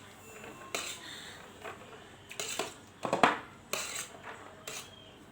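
Cutlery clinking and scraping against a plate or bowl while instant noodles are eaten, a string of short clicks with a louder clatter about three seconds in.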